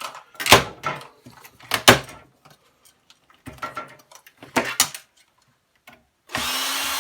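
Several sharp knocks and clatters of metal and plastic parts being handled and put down, then a cordless power drill starts running near the end with a steady whine.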